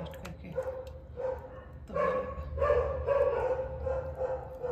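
A dog whining and yelping in a string of short, repeated pitched cries.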